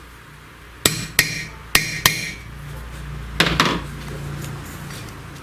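Hammer tapping a new valve stem seal down onto its valve guide in a VAZ-21099 cylinder head: four sharp taps in the first two seconds, then two quick taps about three and a half seconds in.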